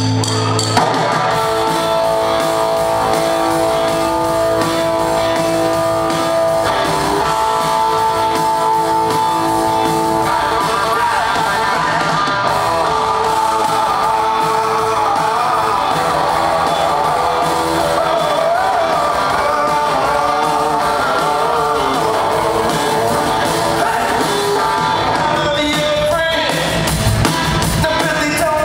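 Live rock band playing at full volume: electric guitars, bass and drums, with a man singing.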